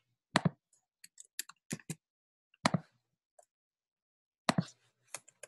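Scattered clicks of a computer mouse and keyboard keys: about fifteen short, sharp clicks, some in quick pairs, with a lull of over a second in the middle.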